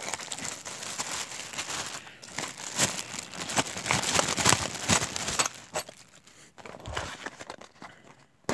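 Clear plastic bag crinkling and crackling as it is handled and opened to take a tool pouch out. The crinkling is dense for the first five seconds or so, then thins to scattered crackles, with a sharp click at the very end.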